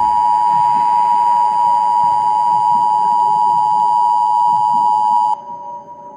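A loud, steady electronic beep tone from an electronic music score, held for about five seconds, then dropping sharply to a faint tone.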